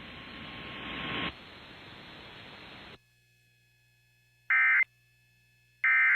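Static hiss for about three seconds, then two short Emergency Alert System end-of-message data bursts, identical digital warbles about 1.3 seconds apart, signalling the end of the alert.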